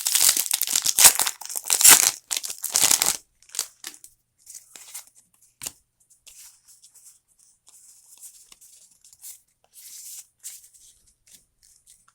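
Foil booster-pack wrapper being torn open and crinkled for about three seconds, then quieter, scattered rustling and ticks of the wrapper and cards being handled.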